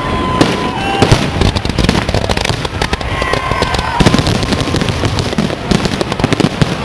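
Fireworks display: many aerial shells bursting in quick succession, a dense run of bangs and crackling, with a couple of whistling tones, one at the very start and one about three seconds in.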